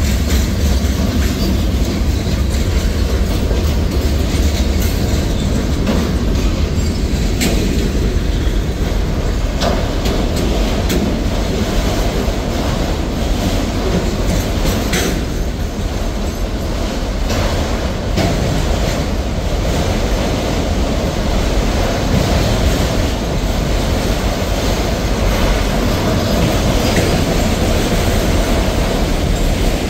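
Freight train cars rolling past: a steady loud rumble with the wheels clacking over the rail joints.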